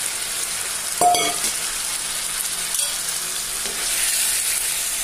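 Yogurt-marinated chicken pieces sizzling as they fry in hot oil and masala in a non-stick wok while being stirred with a spatula. A short clank of the spatula against the pan about a second in.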